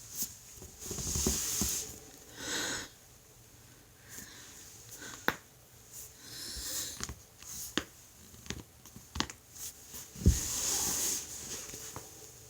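A person breathing out heavily several times while moving, with scattered sharp clicks and one louder thump about ten seconds in.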